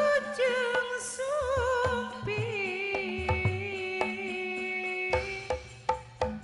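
Sundanese gamelan music: a wavering, ornamented melody line over drum strokes, with the percussion more prominent and the melody sparser in the last second or so.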